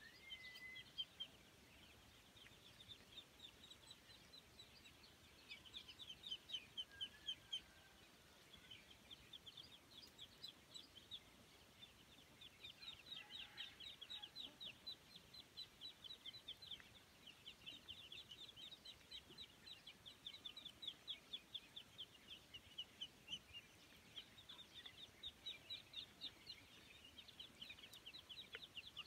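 A flock of ducklings and young ducks peeping: runs of short, high-pitched peeps, several a second, with brief pauses between the runs.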